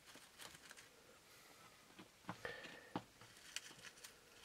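Faint crinkling and crackling of dry leaf litter handled by fingers in a plastic deli cup, with a few small clicks and a brief squeak a little past halfway.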